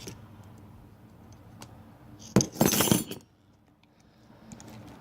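A brief clattering clink of kitchen utensils, loud for under a second a little past the middle, with only faint small clicks of handling before it.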